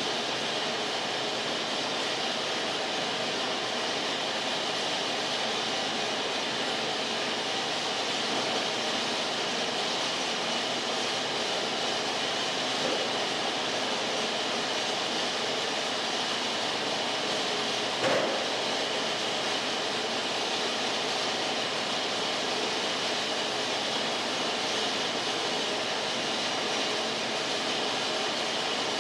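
Wood-Mizer LT50 band sawmill running with a steady, even noise, with one brief sharp click about two-thirds of the way through.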